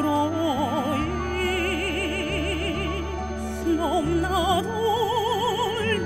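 A woman singing a slow melody into a microphone over instrumental accompaniment, holding long notes with a wide, heavy vibrato.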